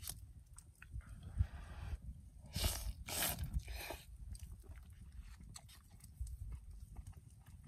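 A man eating with chopsticks close to the microphone: chewing and small mouth clicks, with three short hissing sounds between about two and a half and four seconds in.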